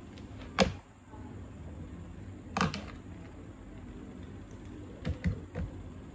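Sharp plastic clicks and knocks from handling a small homemade motor-and-propeller assembly and its switch box: a loud click about half a second in, another at about two and a half seconds, and three quick knocks near the end, over a steady low hum.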